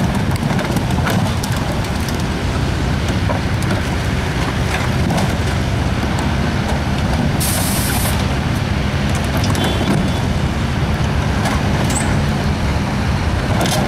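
Komatsu mini excavator's diesel engine running steadily under load while its bucket tears into the burned trailer wreck, with scattered clanks and crunches of charred metal debris and a short hiss about halfway through.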